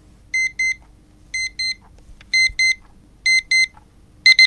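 Digital alarm clock beeping: pairs of short high electronic beeps about once a second, turning into a run of four quick beeps near the end.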